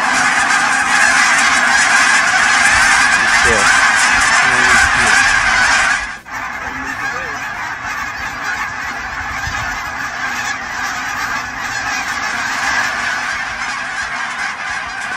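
A large flock of Canada geese honking overhead: a dense, continuous chorus of many overlapping calls. It drops suddenly to a somewhat lower level about six seconds in.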